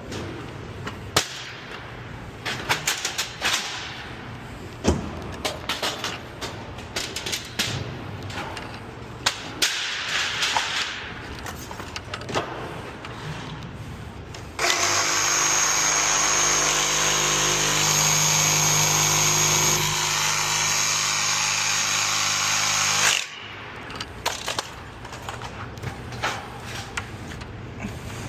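Scattered knocks and clatter of demolition work, then about fifteen seconds in a power tool's motor runs steadily at full speed for about eight seconds and cuts off suddenly, followed by more knocks.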